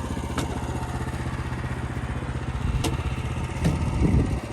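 An engine idling steadily with a fast even pulse, with a few sharp clicks and a brief louder knocking about four seconds in.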